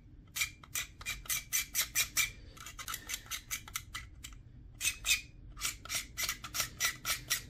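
A hobby knife blade scraping along the edge of a painted plastic model-aircraft fuselage, in many short strokes in quick succession with brief pauses, cleaning paint off the mating surface so the parts can be glued.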